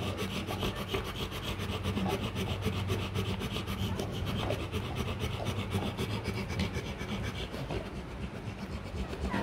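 Nursing Rottweiler mother panting rapidly and steadily, each breath a short rasp.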